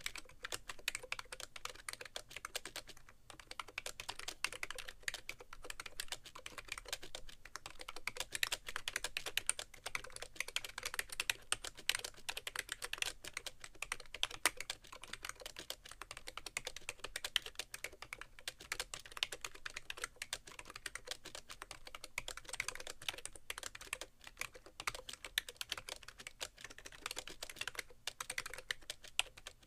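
Fast, steady typing on a BTC 5100c (SIIG MiniTouch Plus) mini keyboard with rubber-dome, slider keys: a dense stream of key clicks, with a brief pause about three seconds in. The board rests directly on a keyboard tray, with no towel under it.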